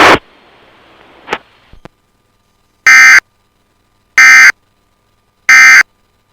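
Emergency Alert System end-of-message data bursts: three short, harsh, buzzy bursts of digital tones, evenly spaced about a second and a half apart. They signal the end of the alert.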